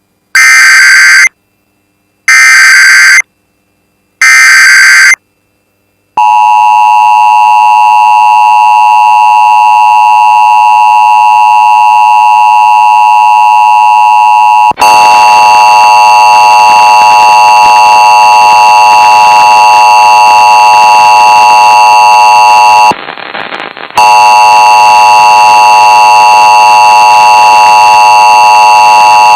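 Emergency Alert System test: three short screeching SAME header data bursts, then a steady two-tone EAS attention signal. About fifteen seconds in it cuts abruptly to a harsher, noisier steady alert tone, which drops out for about a second near the end.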